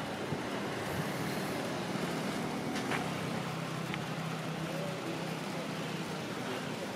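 Town street noise with a motor vehicle's engine running as a steady low hum, and a couple of faint clicks near the middle.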